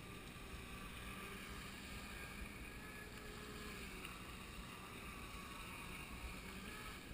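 Faint whine of a radio-controlled jet boat's 540 electric motor out on the water, its pitch drifting slightly up and down with throttle, over a steady background hiss.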